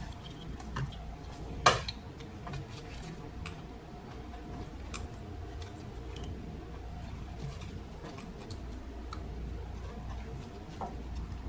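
Small clicks and taps of a screwdriver and plastic ignition coil connector clips being worked loose, with one sharp click a little under two seconds in.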